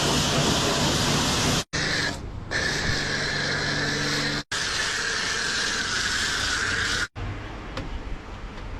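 High-pressure car-wash water gun spraying a camper van, a steady hiss of water with a whining pump tone. It is broken by abrupt cuts and is quieter after the last one, near the end.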